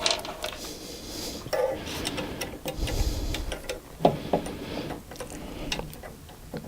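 Irregular light clicks and knocks of metal parts being handled and fitted while a bench mill's Z-axis slide and ballscrew are assembled, with a brief low rumble about three seconds in.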